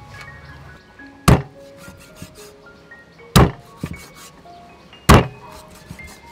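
A cleaver chopping through a large fish into a thick round wooden chopping block: three heavy chops about two seconds apart, with a lighter knock after the second. Soft melodic background music plays underneath.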